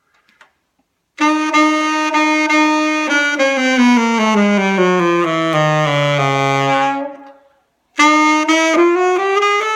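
Saxophone with a Yamaha mouthpiece playing a held note, then a stepwise descending scale down to a low note, then after a short break starting a rising scale. The player feels a lot of resistance from the mouthpiece and says he is on the verge of losing control and squeaking.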